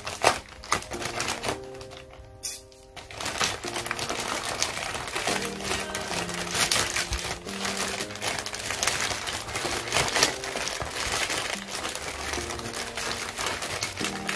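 Plastic poly mailer crinkling and crackling as it is torn and pulled open by hand, dense and continuous after a brief lull about two seconds in, over background music with simple held notes.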